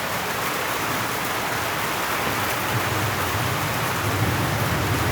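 Steady rain falling, a dense even hiss. A low rumble comes up in the second half under the rain.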